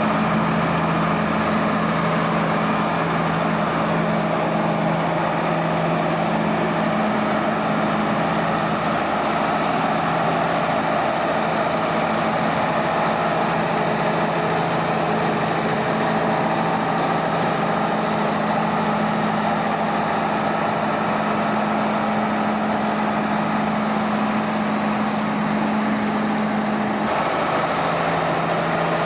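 Engine of a motor vehicle running steadily with a constant hum, its tone shifting slightly near the end.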